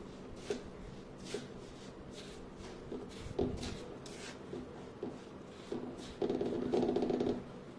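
Wooden spatula scraping and stirring through roasted semolina and powdered sugar in a steel pan, a series of gritty scrapes about once a second. A louder steady hum joins for about a second near the end.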